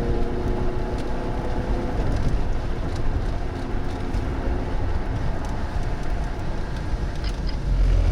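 Vehicle on the move, a steady rumble of road and engine noise heard from inside the cabin, growing louder near the end.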